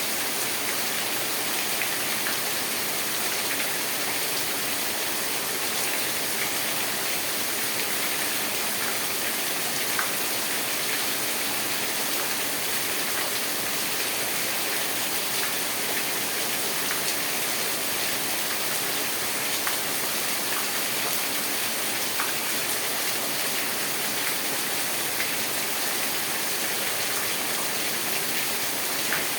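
Steady rain falling, an even hiss with a few sharper drop taps now and then.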